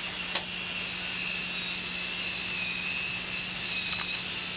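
Steady whine and hiss with a low hum from a late-1980s home-video camcorder's own mechanism, with a sharp click about half a second in and a fainter click near the end.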